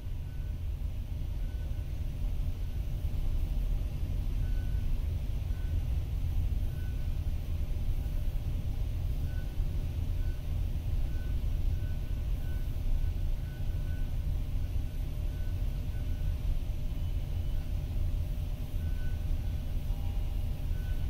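Steady low rumble of city road traffic heard through glass, with faint short beeps now and then.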